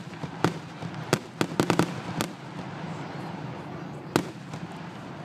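Fireworks going off: a quick string of sharp bangs and pops in the first two seconds, then a steady hiss, and a single loud bang just after four seconds in.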